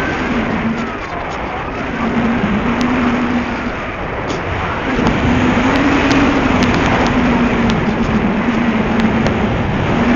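Tiny Cox .049 Black Widow two-stroke glow engine of a model Cessna 182 buzzing in flight. Its single tone rises and falls and fades twice before coming back stronger as the plane moves about the sky, over a steady rush of wind noise.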